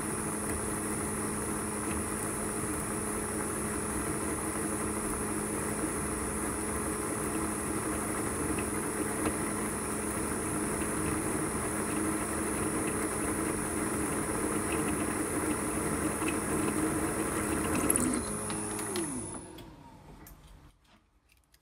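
Bench mill/drill spindle running a 3 mm end mill as it cuts into a steel part, a steady motor hum with a thin high whine. About 18 seconds in the machine is switched off and the hum falls in pitch as the spindle winds down to a stop.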